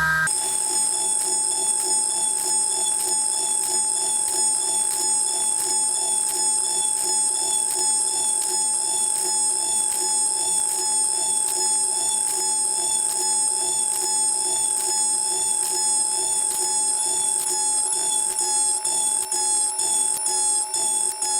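A Rhino Inox end mill cutting metal on a CNC milling machine in a dynamic milling toolpath. It makes a steady, high-pitched whine with several pitches at once, and faint ticks come about twice a second.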